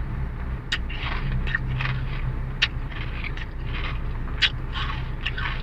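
Close-up chewing of Mister Potato sweet potato crisps eaten with ice cream: a run of crunches and crackles, over a steady low hum.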